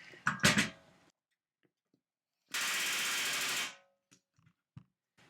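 Pneumatic rivet gun hammering in one burst of about a second, driving an aircraft rivet a bit further; a few sharp knocks of tools being set against the work come just before.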